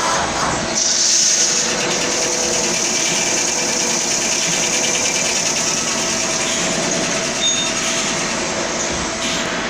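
CNC lathe running a part program in automatic cycle: steady machine noise with a faint steady whine from the drives and a hiss that brightens about a second in.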